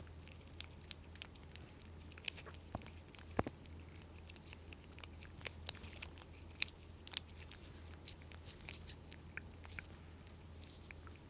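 A cat chewing and crunching food, with many short, irregular crunches.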